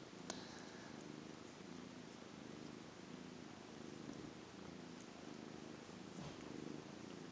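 Hairless cats purring softly while kittens nurse: a low, even purr that swells and eases in a steady breathing rhythm.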